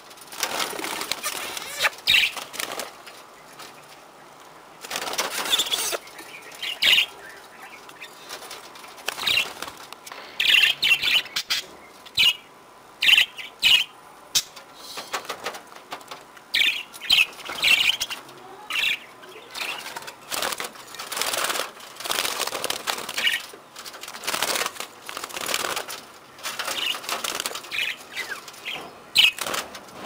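A flock of budgerigars flapping their wings in repeated short flurries, with chirps in between.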